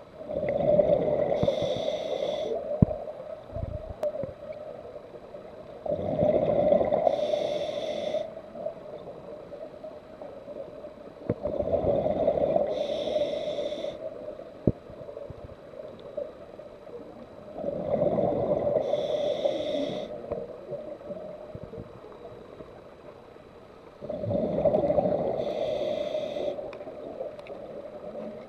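Scuba diver's regulator breathing: five breaths about six seconds apart, each a two-second rush of exhaled bubbles with a hiss, between quieter stretches.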